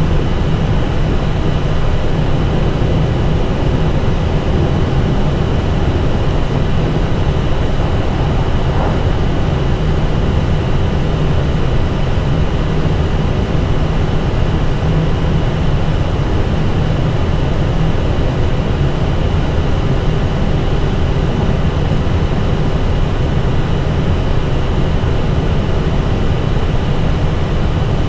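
Steady cockpit noise of an Airbus A320 taxiing with its engines at idle: a constant low rumble with a faint steady whine above it, unchanging throughout.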